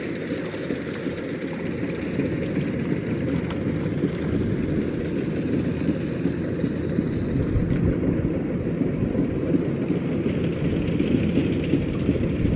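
Wind buffeting the camera microphone outdoors: a steady, low rumbling noise with no distinct events.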